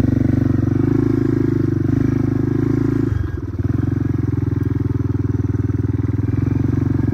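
Small off-road vehicle engine running steadily while the vehicle drives along. About three seconds in, the engine briefly eases off, then picks back up.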